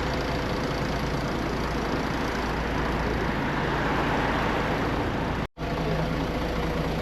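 Steady engine and road noise of a moving tour vehicle, with a low hum underneath. The sound drops out for an instant a little over five seconds in, then carries on.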